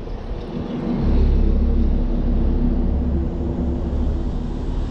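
Steady engine drone with a deep rumble, starting about a second in and holding level.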